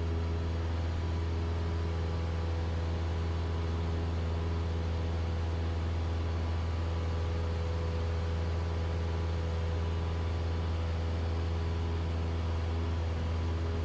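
Cessna 172SP's four-cylinder Lycoming IO-360 engine and propeller running steadily at climb power, a constant low drone heard inside the cockpit.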